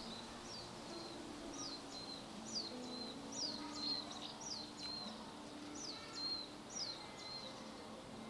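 Raccoon dogs (tanuki) giving a series of about nine high-pitched whining squeaks, each a quick falling note that levels off, repeated at irregular intervals of under a second.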